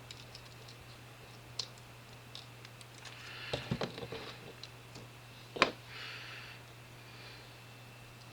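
Small plastic and metal model-kit parts and a screwdriver being handled, giving scattered light clicks and taps, a quick cluster of them about three and a half seconds in and one sharp click at about five and a half seconds. A low steady hum lies underneath.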